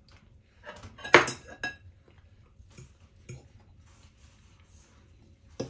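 Cutlery and dishes clinking during a meal: a few short knocks and clinks, the loudest about a second in with a brief ring, and a sharp click near the end.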